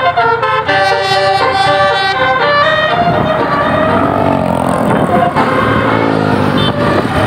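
Tour bus telolet horn playing a quick melody of short stepped notes, which stops about two and a half seconds in. The noise of the passing bus then takes over, with its engine pitch bending up and down.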